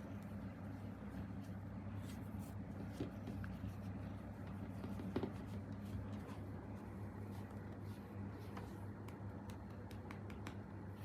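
Steady low hum with a few faint small clicks and rustles scattered through it.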